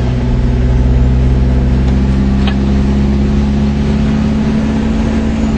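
Car engine running at steady revs, a low even hum that drops away at the end.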